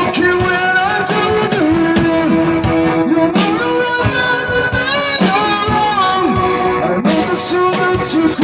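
Rock song with guitar to the fore, playing long held notes that bend in pitch over a steady beat.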